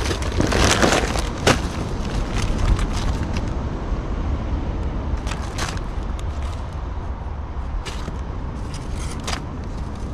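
Barbecue heat beads being loaded into a metal chimney starter: the plastic bag rustles as the briquettes are poured, then scattered clinks and knocks as more are dropped in by hand, loudest about a second and a half in. A steady low rumble of wind on the microphone runs underneath.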